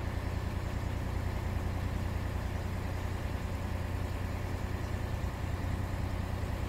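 An engine running steadily at idle, a low, even hum with no change in speed.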